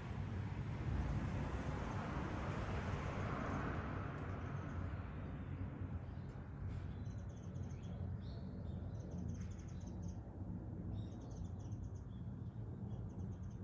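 Outdoor ambience: a steady low rumble, with a broad swell of noise over the first few seconds. From about six seconds in, small birds chirp in short repeated runs of high notes.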